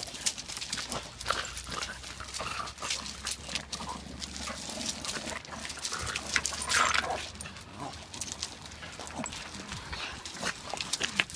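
Several dogs jumping at and tugging on a wooden stick, their paws scrabbling and crunching on gravel, with short dog whines and vocal noises among the scuffling.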